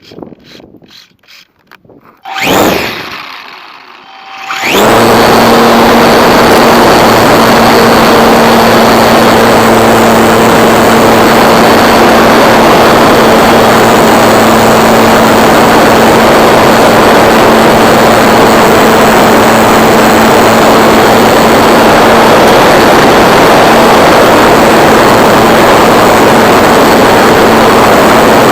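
RC Piper Super Cub's motor and propeller, heard from a camera on the plane: a short burst of power about two and a half seconds in, then from about five seconds in running loud and steady at full throttle.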